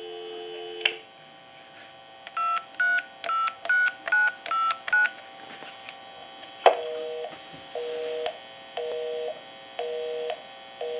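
Telephone line tones: a dial tone for about a second, then about seven quick touch-tone (DTMF) beeps as a number is keyed on a Trimline telephone's keypad. After a click, a busy signal beeps on and off about once a second, because the number called is busy. All of it is heard through a test amplifier's speaker.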